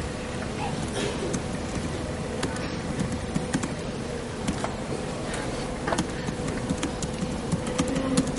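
Room tone of a large hall: a steady hum with scattered faint clicks and rustles.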